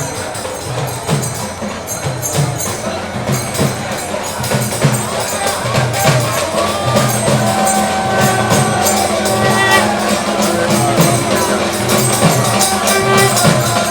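Music with a steady percussion beat; long held notes come in about halfway through.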